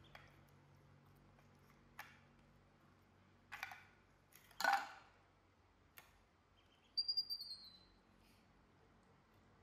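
Light taps, clinks and two louder scraping rustles of a plate of cookies being handled on a tile floor by a baby macaque. About seven seconds in comes a quick run of high, slightly falling duckling peeps.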